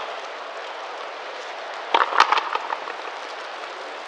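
A frontenis ball being struck with a stringed racket and hitting the frontón wall: a quick cluster of sharp cracks about two seconds in, the second one loudest, followed by a few smaller clicks.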